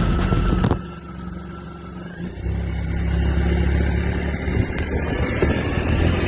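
Suzuki Burgman 650 K8 scooter running, with the odd noise that sounds like the drive belt rubbing, which comes on as the bike decelerates, mostly just after the engine has been started. There is a click about a second in, then the sound drops and comes back stronger about two seconds later.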